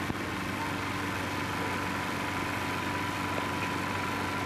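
A steady mechanical hum with hiss and a faint, thin high whine.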